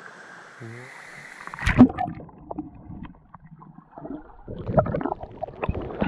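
Water splashing and gurgling around a waterproof camera held at the surface while swimming, going muffled and bubbly as it dips under. A steady rush of falling water comes first, then a sudden loud splash about two seconds in and a string of irregular sloshes and knocks.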